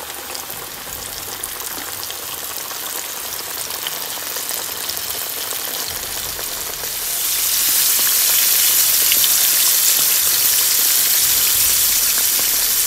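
Battered chicken pieces deep-frying in medium-hot oil: a steady sizzle that grows louder and brighter about seven seconds in.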